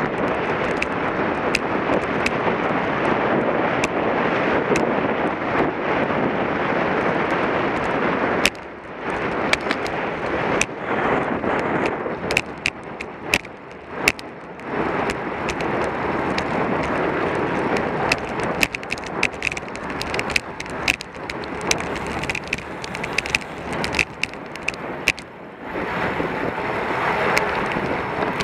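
Wind rushing over a bicycle-mounted camera's microphone with tyre and road noise as the bike rides, plus scattered sharp clicks and rattles. The rush drops briefly about eight seconds in and again shortly before the end.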